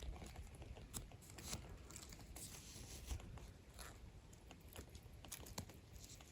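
Faint crackling of forest-floor leaf litter and twigs: a few scattered, crisp snaps and rustles at irregular moments.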